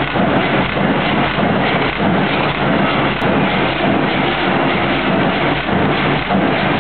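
Loud, steady mechanical din of a forging hammer working a red-hot billet, with no distinct separate blows.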